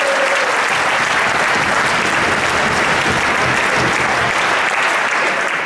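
Crowd of spectators in a sports hall applauding the end of a table tennis rally, with a drawn-out cheer at the start; the applause dies down near the end.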